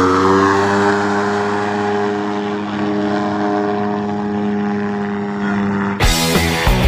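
Ultralight trike's engine and pusher propeller droning steadily, its pitch sliding down a little in the first second. Music starts about six seconds in.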